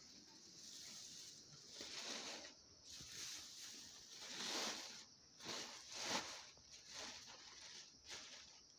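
Thin plastic carrier bag crinkling and dry, brittle greens rustling as handfuls are scooped from a wicker basket into the bag, in irregular swishes, several louder ones in the middle.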